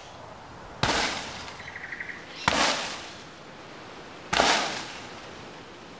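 Three hard kicks land on a banana plant's soft, fibrous trunk, each one a sharp thud with a short rustle of the plant's leaves dying away after it. The kicks come about one and three quarter seconds apart.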